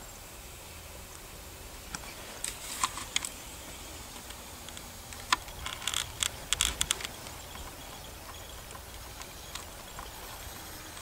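Steady microphone hiss with scattered sharp clicks and rustles from a handheld camera being handled, in two bursts about two and a half seconds and six seconds in.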